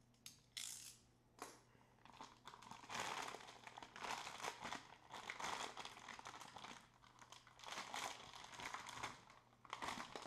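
Clear plastic bag crinkling and rustling in irregular bursts as it is pulled off a filament spool and crumpled up in the hand.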